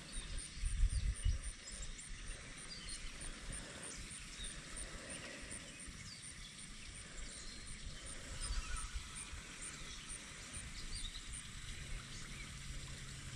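Quiet outdoor ambience: wind rumbling on the microphone in the first second and a half, faint scattered chirps, and a low steady hum that starts near the end.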